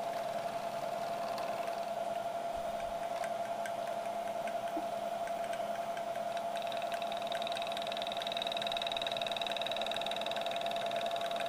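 Milling machine spindle running at about 1100 rpm with a corner rounding end mill taking a light hand-fed roughing pass along the top edge of an aluminum part. A steady whine runs throughout with faint scattered ticks, and a higher-pitched whine joins about six and a half seconds in.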